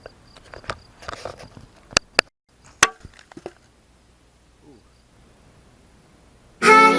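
A few faint rustles, then three sharp clicks or knocks, two close together and one a moment later, followed by quiet; near the end, loud background music with sustained guitar-like tones starts abruptly.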